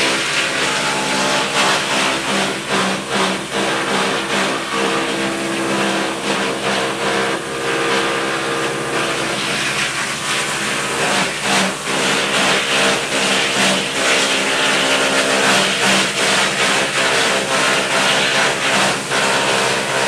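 Skorpion 350 EB4 drum wood chipper and its chip blower running loud and steady, with a constant machine hum and rush of air, and irregular sharp cracks and clatter throughout as wood offcuts are chipped.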